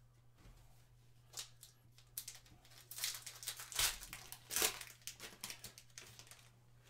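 Foil wrapper of a Panini Mosaic Fast Break trading-card pack crinkling and tearing as the pack is ripped open, an irregular run of crackles that is loudest just past the middle.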